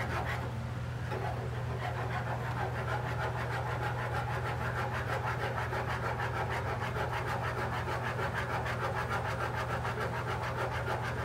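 A steel spoon stirring thick custard in a nonstick frying pan, scraping the pan in a quick, even rhythm of several strokes a second, over a steady low hum.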